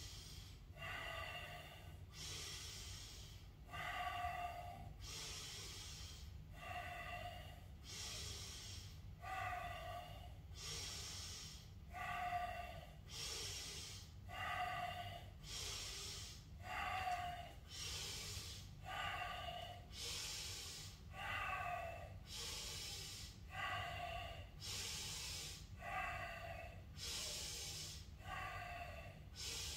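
A person breathing deeply and rhythmically through a qigong breathing exercise: airy inhales alternating with audible exhales, about one full breath every two and a half seconds.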